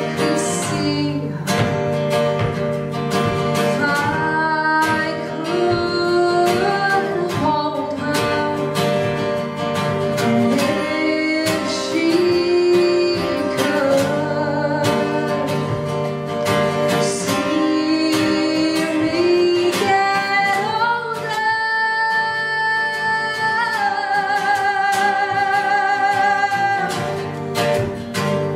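A woman singing a musical-theatre song into a microphone, accompanied by a plucked acoustic guitar; in the second half she holds long notes with vibrato.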